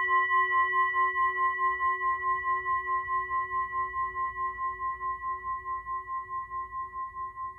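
A long ringing metal tone with several pitches sounding together, wavering in a steady pulse about five times a second and slowly fading away.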